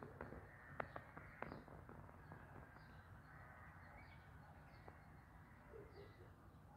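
Cat eating wet food from a bowl: a few sharp clicks of chewing and lapping in the first second and a half, then quieter chewing. Faint distant bird calls sound in the background.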